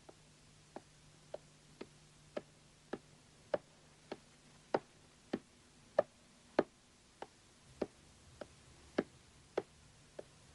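Footsteps on wooden stairs and floorboards: soft, evenly paced steps a little under two per second, growing louder toward the middle and then softer.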